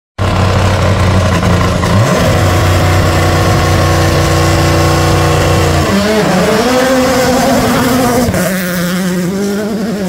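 Toyota GR Yaris Rally1 rally car's turbocharged three-cylinder engine held at steady high revs, then dipping and climbing in pitch as the car pulls away about six seconds in. Near the end it is heard revving again on a gravel stage.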